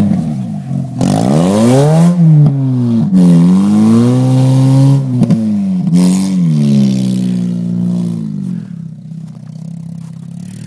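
Toyota Corolla's engine revving up and falling back three times while the car is driven hard, then settling to a steady low run near the end.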